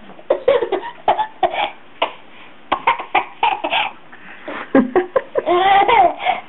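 Baby laughing in short, breathy bursts of belly laughter, coming in three clusters, with a longer, drawn-out laugh near the end.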